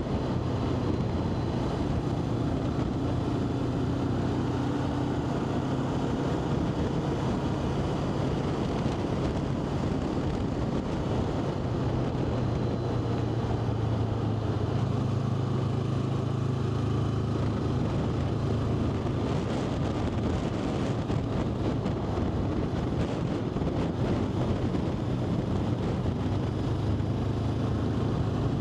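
Vehicle engine running steadily on the move, with wind noise over the microphone; the engine drone grows louder about halfway through.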